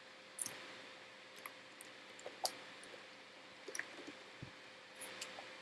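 Computer mouse clicking, about a dozen faint, sharp clicks at irregular intervals over a low steady hum.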